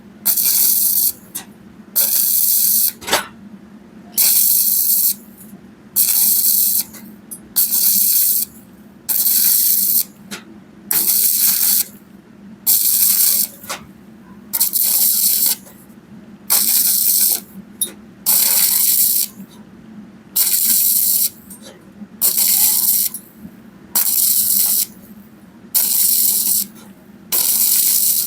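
Stick-welding arc crackling and hissing in short bursts, about a second each and roughly every second and a half, as the arc is struck and broken over and over. This is a 2.0 mm electrode at 80–90 A on thin 2.35 mm round pipe. A faint low hum runs underneath.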